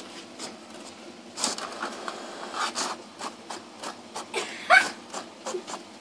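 HP inkjet printer printing a page, making a series of short whirring and clicking passes as the sheet feeds out, with a brief rising squeak near the end.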